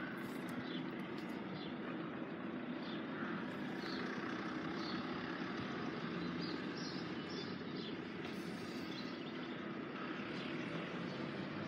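Steady low engine hum of an approaching Class 175 diesel multiple unit, with small birds chirping now and then.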